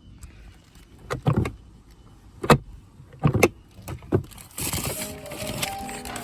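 A handful of separate knocks and clunks, then a steady rushing noise with music coming in near the end.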